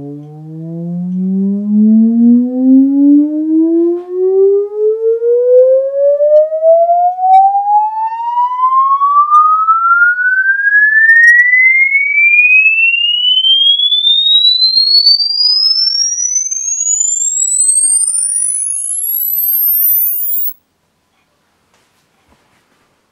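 Sine-wave frequency-sweep test tone played through a JBL Clip+ portable Bluetooth speaker. It glides steadily up in pitch from a low hum, with overtones above it in the bass, to a very high thin whistle. It cuts off suddenly near the end.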